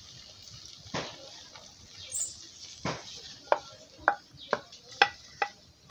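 Scattered light clinks and taps of a bowl and utensils against a metal cooking pot as beaten eggs are poured over rice. The taps come sparsely at first, then about every half second.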